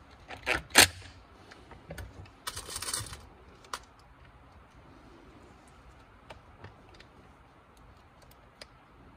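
Clicks and clatter from handling a plastic car side-mirror housing and tools: a few sharp clicks in the first second, a short rattle about two and a half seconds in, then faint scattered ticks.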